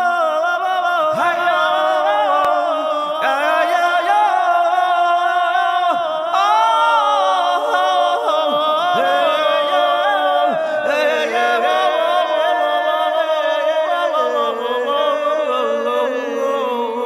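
Slow, chant-like singing: long held notes that bend slowly in pitch.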